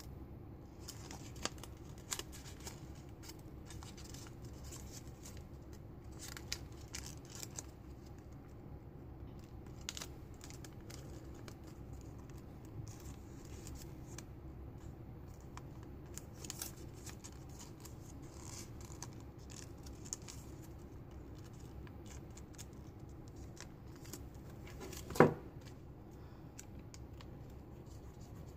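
Folded paper rustling and crinkling as it is creased by hand, with scattered small clicks over a steady low hum. One sharp knock about 25 seconds in is the loudest sound.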